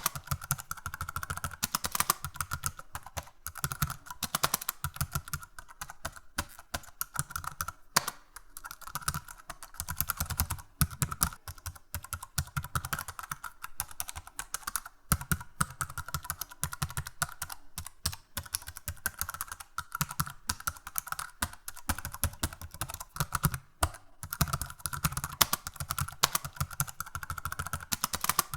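Computer keyboard typing: fast, irregular key clicks in quick runs with short pauses between them.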